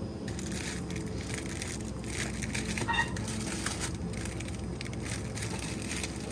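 Plastic produce packaging crinkling and rustling as the packs of cherry tomatoes are handled, a dense irregular crackle over a steady low background hum. A brief high chirp sounds about three seconds in.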